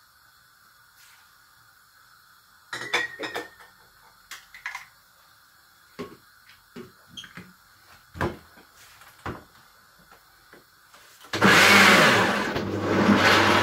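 A few knocks and clatters as the blender jug is handled and lidded, then about eleven seconds in a Kenwood countertop blender starts up and runs loudly, chopping green peppers and onions in water into a coarse, not-smooth pepper mix.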